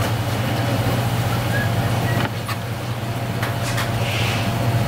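Steady low mechanical hum, with a few faint knife taps on a plastic cutting board as raw conch meat is sliced, about two and a half seconds in and again about a second later.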